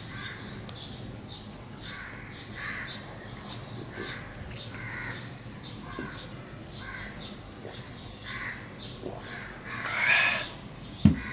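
Crows cawing over and over in the background. Near the end there is a loud breathy 'aah' after a drink of water, then a sharp knock as the drinking glass is set down on the table.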